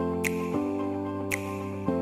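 Background music: sustained chords that change about once a second, with a light tick about once a second.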